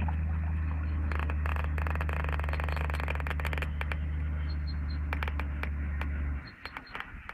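A steady low motor hum that cuts off about six seconds in, with a run of clicks and rattles in the first few seconds.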